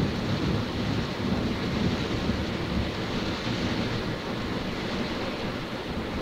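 Water jets from a Kleindienst Euro Combi rollover car wash spraying over the car, heard from inside the closed cabin as a steady, even rush of water with a low rumble.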